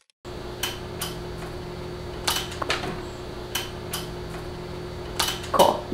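Scattered light taps and clicks of hands working strips of tape against a painted wall, over a steady hum of room tone.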